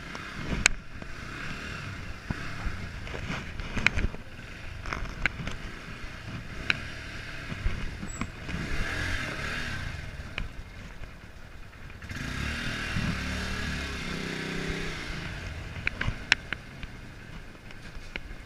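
Small motorcycle engine running at low speed while the bike is ridden slowly, with a stronger, steadier engine note for a few seconds about two-thirds of the way through. Scattered sharp knocks and clatter from the bike and camera mount come through as it rolls over bumps.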